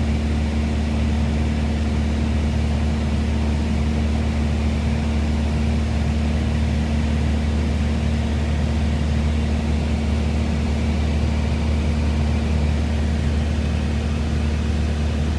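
Small airplane's engine and propeller droning steadily in flight, heard from inside the cockpit, with a low, even hum that does not change.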